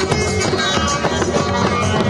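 A street drum band of snare and bass drums, carried on shoulder straps and beaten with sticks, playing a steady rhythm, with a held melody line over the drumming.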